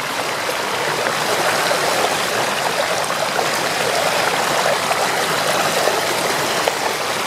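A bicycle's tyres cutting through shallow floodwater on a paved road: a steady splashing rush of water.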